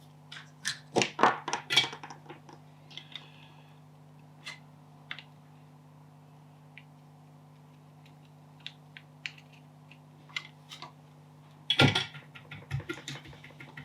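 Small clicks, taps and knocks of hand tools and small parts being handled on a workbench during soldering. There is a busy cluster in the first two seconds and another about twelve seconds in, with scattered single clicks between, over a faint steady low hum.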